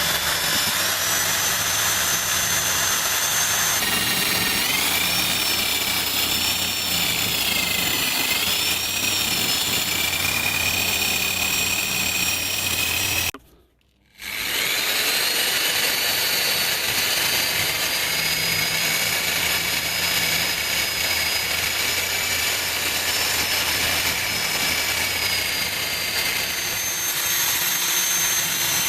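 A power tool's electric motor running under load, with a high whine that wavers in pitch as the work presses on it. The sound stops for about half a second partway through, then runs again.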